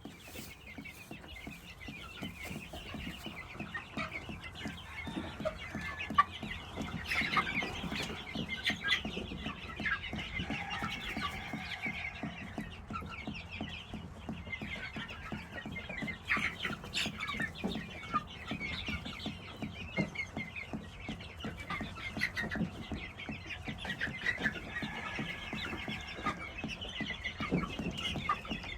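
Young chickens clucking, with many short calls overlapping throughout.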